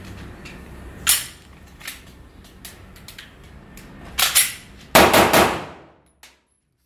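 Shots from a 9mm CZ 75 P07-pattern pistol: one shot about a second in, then a quick string of several more near the end, each with a short ringing tail.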